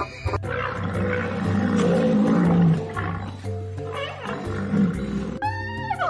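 A southern cassowary's rough, deep call lasting about five seconds, loudest midway, over background music. Near the end it gives way to a high, swooping monkey call.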